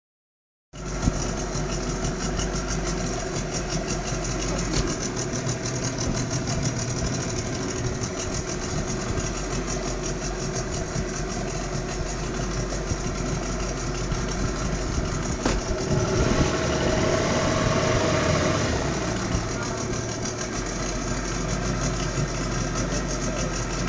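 Boat motor running steadily at idle, growing a little louder for a few seconds about two-thirds of the way through.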